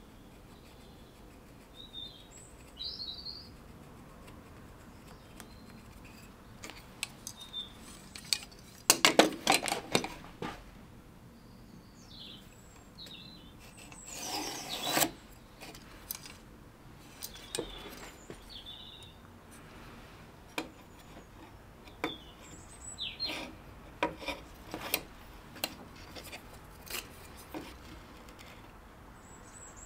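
A metal square and pencil being handled on plywood while a line is marked out: scattered clicks and taps, a quick cluster of knocks about nine seconds in, and a longer pencil scratch along the square's edge about fourteen seconds in. Small birds chirp now and then in the background.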